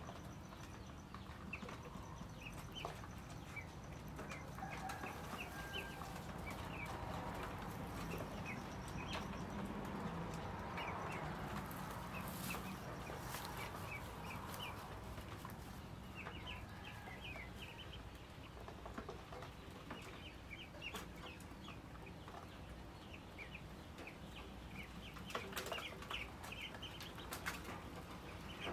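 Chickens in a coop: soft clucks and many short high chirps scattered throughout, over a faint rustle, with a few sharp clicks about halfway through and near the end.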